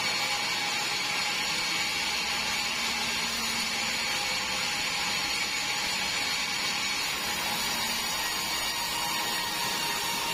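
Band sawmill running steadily: a constant mechanical whine over a hiss, with no break or change in level.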